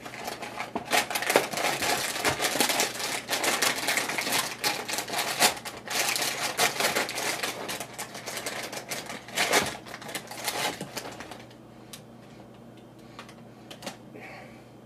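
Cardboard cereal box being torn open by hand: rapid crackling and tearing of the box top and its packaging for about eleven seconds, then a few scattered rustles.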